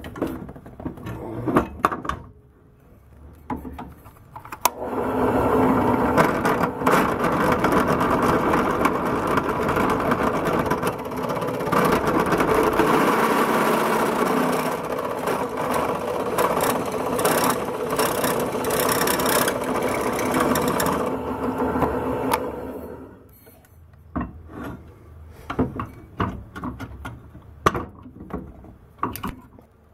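Drill press motor running while the bit drills into a metal part clamped in a drill press vise, starting about five seconds in and stopping about twenty-two seconds in. Before and after it, metal clinks and knocks as the part is set in and taken out of the vise.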